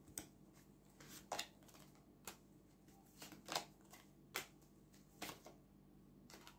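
A deck of tarot cards being shuffled by hand: faint short swishes and taps, about one a second.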